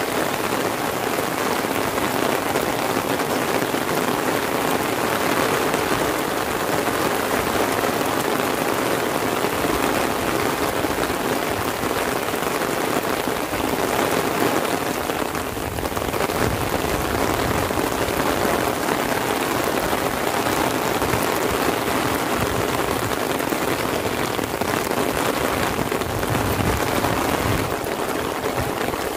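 Heavy rain falling steadily on an umbrella overhead and on a paved road.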